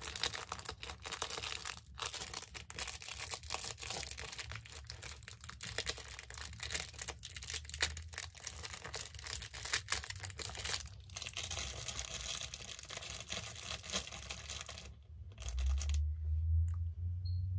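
Hands and hair rustling and crackling close to the microphone as a small elastic rubber band is wrapped around a section of hair, in a rapid, uneven stream of little clicks. The crackling stops about 15 seconds in and a low hum comes in.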